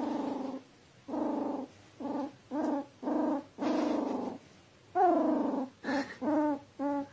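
A pet animal, the cat or the puppy lying on it, makes a run of short, low growls, about eight of them with brief gaps between, a few falling in pitch.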